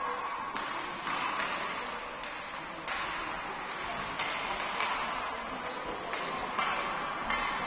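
Ice hockey play on an indoor rink: a run of about eight sharp clacks of sticks and puck, irregularly spaced, each ringing out in the hall's echo.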